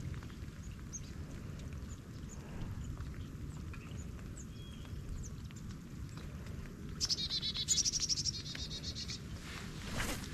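Birds chirping over the steady patter of light rain on creek water. About seven seconds in, one bird sings a fast repeated trill for about two seconds, the loudest sound. There is a single click near the end.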